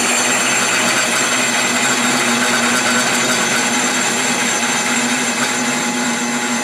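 Walker Turner drill press, driven at slow speed by a DC motor, running under a heavy hand-applied load in a stall test: a loud, steady rubbing noise over a low steady hum. The motor slows slightly but does not stall, and the belt does not slip.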